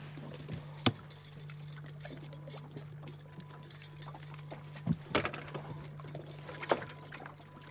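Scattered knocks, clicks and light rattling as a crappie is unhooked and handled in an aluminium fishing boat, over a steady low hum.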